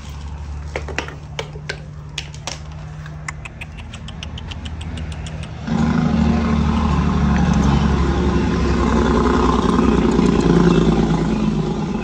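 A motor vehicle engine running close by, coming in suddenly about six seconds in and staying loud and steady. Before it, a low hum with scattered light clicks of tools being handled.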